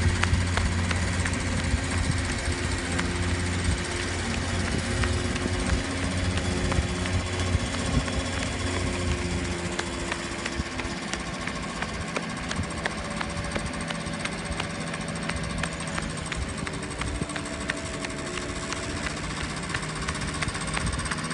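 Small engine of a student-built three-wheeled Shell eco car running as the car drives along, a steady engine note with a rough, knocking edge. Its low part grows fainter after about ten seconds and its pitch shifts slightly.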